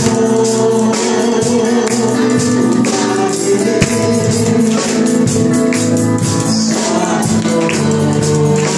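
Congregational worship song: a man's voice sung through a microphone and PA, with held notes and a steady percussive beat of tambourine and hand claps.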